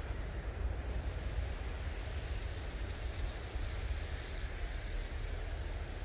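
Winter wind blowing through eastern white pine trees, a steady rushing hiss in the needles over a low rumble of wind buffeting the microphone.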